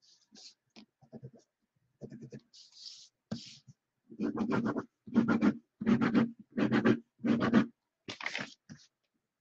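Scratchy strokes of a pen writing by hand. There are a few faint strokes at first, then five stronger bursts of rapid strokes in quick succession from about four to eight seconds in.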